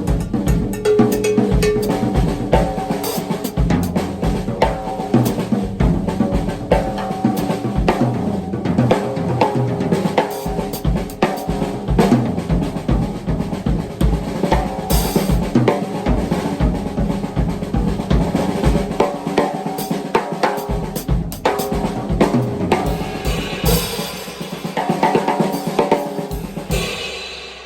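Drum kit played in a busy, unbroken pattern of strokes, brighter in the last few seconds and dying away as the playing stops.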